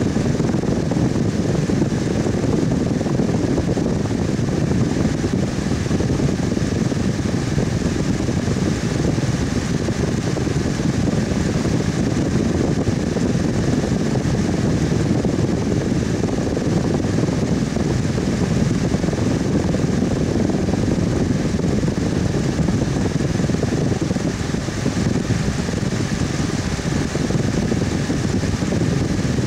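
Electric fan running steadily: a constant low, whooshing noise with a faint hum, no changes in speed.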